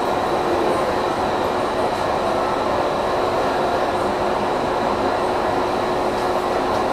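Steady hum of a stopped Seibu 3000 series electric train, heard inside its cab, with a faint high whine running through it.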